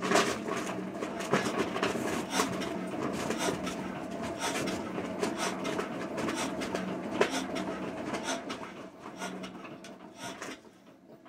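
Old single-cylinder Witte diesel engine being turned over by hand for a start attempt: a busy mechanical clatter of knocks over a steady low hum. It dies away near the end.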